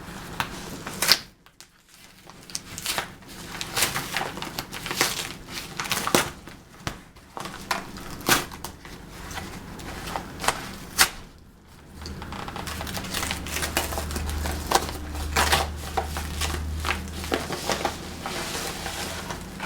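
Plastic packaging being torn and handled while a package is opened: irregular crinkling, rustling and sharp clicks, with a low hum underneath from about halfway through.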